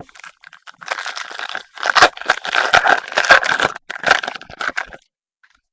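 Foil wrapper of a trading-card pack crinkling and tearing as it is ripped open: a dense crackle starting about a second in and stopping near the end.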